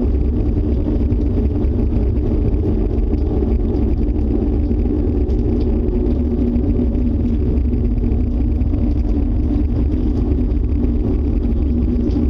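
A loud, steady low rumble that does not let up, the unexplained noise heard during a thunderstorm, which the listeners fear may be a tornado close by.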